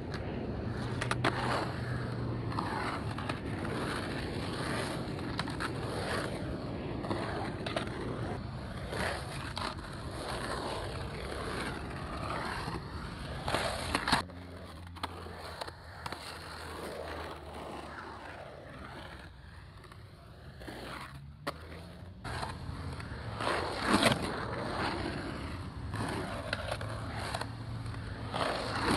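Skateboard wheels rolling on a concrete skate bowl, a steady rumble broken now and then by sharp clacks of the board.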